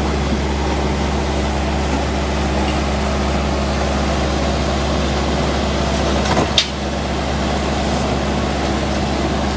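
An engine running steadily, a loud low drone that holds an even pitch throughout, with one brief knock about six and a half seconds in.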